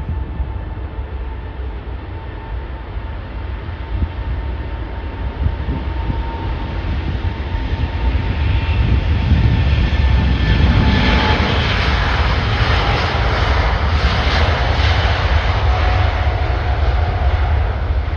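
Jet airliner passing near the runway: a steady engine whine at first, then the jet noise builds to its loudest about halfway through and stays loud.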